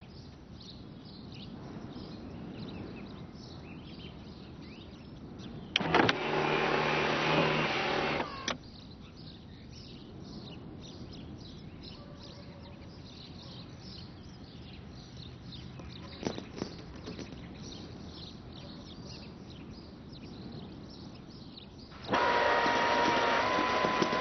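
Outdoor background with birds chirping, broken twice by a much louder pitched sound with a steady tone. The first runs for about two and a half seconds and the second begins near the end. Each starts and stops abruptly.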